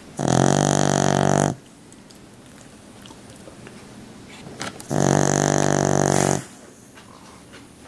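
An animal snoring loudly in its sleep: two long, buzzy snores, each about a second and a half, about four and a half seconds apart, with quieter breathing between.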